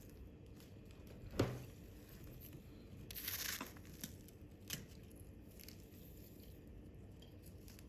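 Household handling sounds: a sharp knock about a second and a half in, a brief tearing rustle around three seconds in, then a few light clicks.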